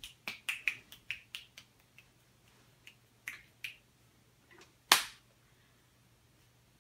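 A quick run of sharp clicks and taps, a few more a little after three seconds in, then one loud sharp click about five seconds in.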